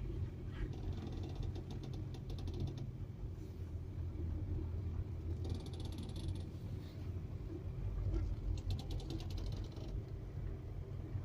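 VW Touran front end creaking in quick runs of fine clicks, three times, as the wheels are turned at a standstill or crawling speed, over a steady low engine rumble. The owner suspects a worn strut mount or sway bar link.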